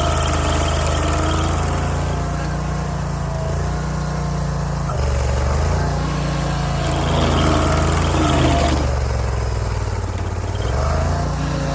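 Barreto SG3630 stump grinder's gasoline engine running at working speed. Its pitch sags twice, briefly about five seconds in and for a longer stretch near the end, then recovers, as the cutter wheel takes load in the stump.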